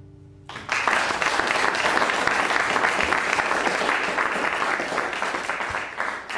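The last acoustic guitar chord rings out, then about half a second in an audience starts applauding. The clapping holds steady and begins to thin near the end.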